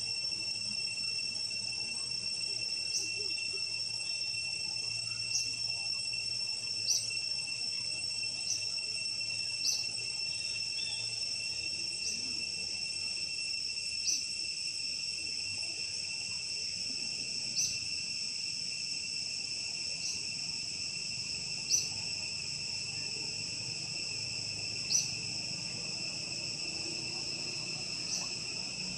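A chorus of insects droning steadily at a few high pitches. A short high chirp repeats irregularly every two to three seconds.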